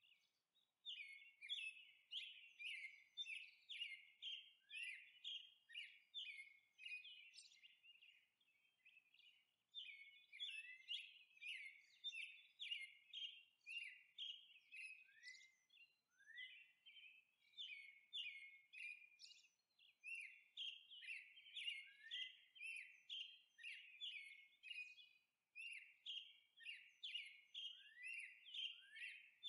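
A small bird chirping over and over, short high notes about two a second, some sliding down at the end, in runs broken by short pauses.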